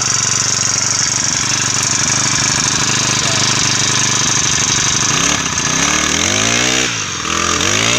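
Yamakoyo BG435 four-stroke backpack brush cutter engine running steadily at idle, then revved up and back down twice in the last few seconds.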